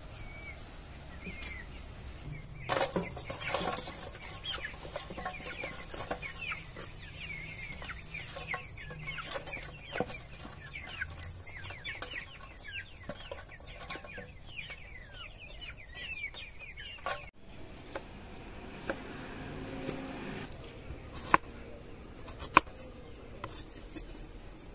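A flock of hens clucking busily as they peck at food scraps, many short falling calls overlapping; the sound cuts off suddenly about two-thirds of the way through. Then a kitchen knife chopping carrot knocks sharply twice on a wooden cutting board.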